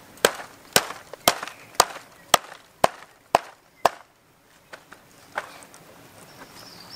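A cleaver chopping through a raw duck onto a wooden chopping block, about two strokes a second, eight sharp chops that stop about four seconds in, followed by a few lighter knocks.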